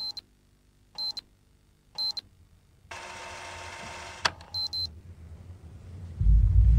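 Digital alarm clock beeping: three short high electronic beeps about a second apart, then a burst of hiss that ends in a sharp click, and one more short beep. Near the end a much louder deep low rumble sets in.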